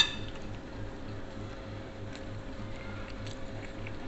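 Eating at a table: a sharp clink of tableware on a plate right at the start, then faint small clicks and squishes of fingers working food on plates and chewing, over a steady low hum.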